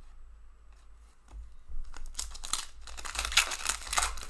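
Foil trading-card pack wrapper being torn open and crinkled by hand. The crackling starts about a second in and grows loudest over the last two seconds.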